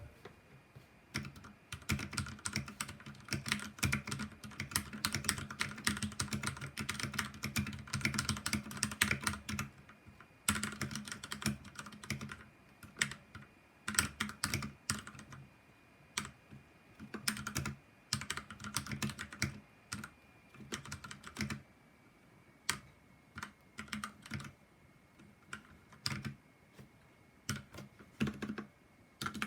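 Typing on a Drevo Calibur V2 60% mechanical keyboard with Outemu Red linear switches lubed with Krytox 205g0 and stock keycaps. An unbroken run of fast keystrokes for the first ten seconds or so, then shorter bursts of typing with pauses between them.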